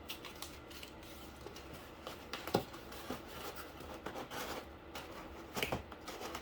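Hands working cardboard and paper: rustling, scraping and light clicks, with two louder knocks about two and a half and five and a half seconds in.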